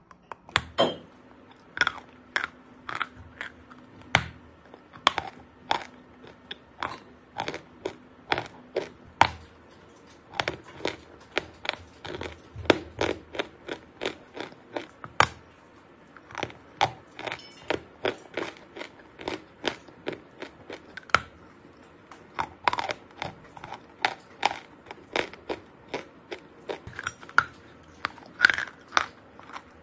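Dry chalk crunching as it is bitten and chewed: a steady run of short, sharp crunches, about two a second.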